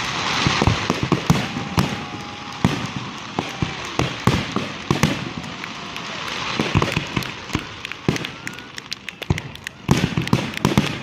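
Fireworks bursting overhead: repeated booms and sharp cracks over a continuous rumble, with a dense run of rapid crackling bangs near the end.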